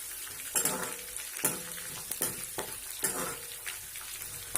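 Split cashews and a tempering of seeds, dal and curry leaves frying in hot oil in a kadai, with a steady sizzle, and a spatula scraping the pan about five times as they are stirred.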